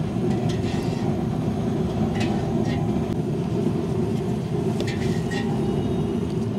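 Steady low roar of a large gas burner firing under the cooking pot. A few faint rustles come from spice powder and salt being shaken into the pot from plastic jars, about two and five seconds in.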